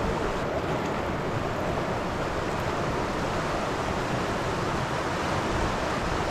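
Steady rush of flowing creek water, an even noise with no distinct events.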